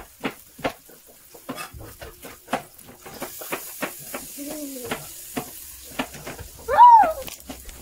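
Clear slime being stretched and pulled up into a bubble, giving off irregular sticky crackles and small popping clicks. A short high vocal exclamation comes near the end and is the loudest sound, with a lower one a little before the middle.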